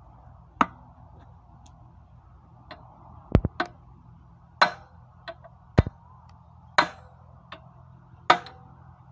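Hand tools knocking and clinking on metal engine parts during engine assembly: about nine sharp, separate strikes at irregular intervals, some ringing briefly, over a steady low hum.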